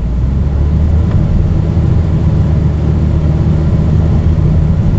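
Vehicle engine and road noise heard from inside the cabin: a steady, loud low rumble.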